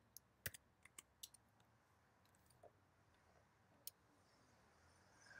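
Faint clicks of a computer keyboard and mouse over near-silent room tone. There is a quick run of about half a dozen clicks in the first second and a half, then a single mouse click just before four seconds in.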